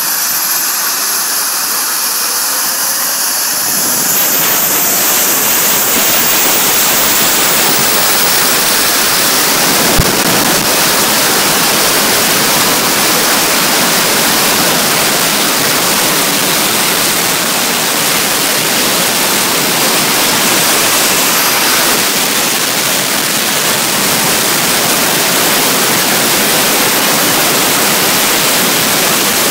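Rolls-Royce RB211 turbofan on a Boeing 757 running on the ground, heard up close with its cowls open: a loud, steady rush of noise. A high whine rises over the first few seconds as the noise grows louder. The engine is being run for a leak check after new o-rings were fitted to its chip detectors.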